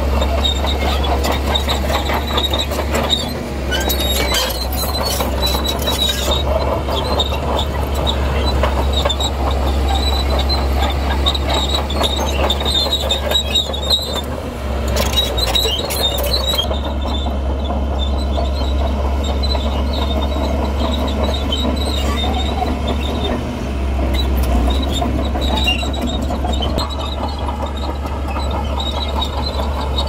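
Heavy crawler earthmover working, its diesel engine rumbling steadily under a high metallic squeal and clanking from the steel tracks; the squeal is strongest in the first half and fades after about fifteen seconds.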